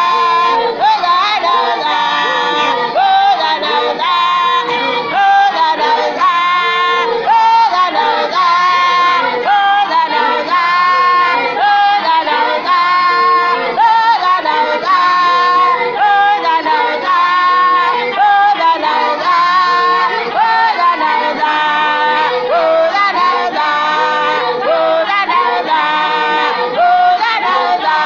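Gospel song sung by women's voices over music, continuous throughout; the recording is thin, with little bass.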